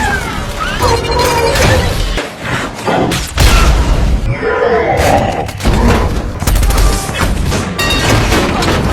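Action-film soundtrack mix: music under a dense run of booms, impacts and crashes, with gliding whoosh-like sounds between them.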